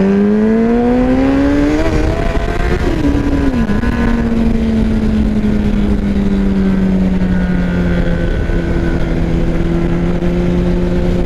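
Motorcycle engine under way: its pitch climbs steadily for about three seconds, drops sharply, then holds nearly steady at cruise, over a loud rush of wind noise.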